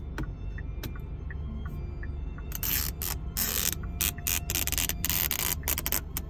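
Protective plastic film being peeled off new car console trim, crackling and tearing in loud, irregular bursts from about two and a half seconds in. A steady low hum lies underneath, with faint regular ticks before the peeling starts.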